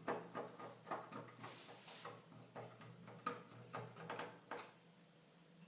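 Faint clicks and small taps of a screwdriver driving two small screws to fix a wireless card into a PlayStation 3 Fat console, a dozen or so irregular ticks that stop about four and a half seconds in.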